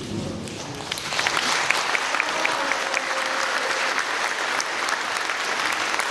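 Audience applauding, the clapping starting about a second in and continuing steadily.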